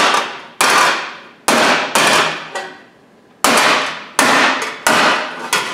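Hammer blows on 18-gauge sheet steel held over a steel pipe, pounding a curve into a repair panel freehand. There are about eight blows at uneven intervals of half a second to a second, each clanging and ringing out briefly, with a few quicker strikes near the end.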